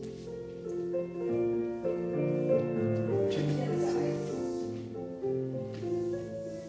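Piano music accompanying a ballet barre exercise, a steady run of held notes and chords.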